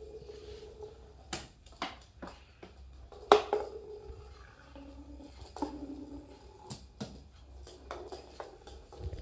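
Automatic rolling ball toy knocking and clicking against a wooden floor and cabinet, a series of sharp knocks with the loudest about three seconds in, over a faint intermittent hum.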